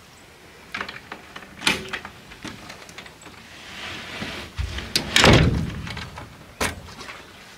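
Wooden cabin door being handled and shut: scattered clicks and knocks, then a louder thud about five seconds in and a sharp knock a second later.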